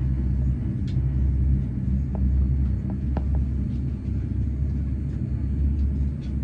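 Steady low rumble of a Boeing 787-9 airliner on the ground with its engines running, with a few faint clicks.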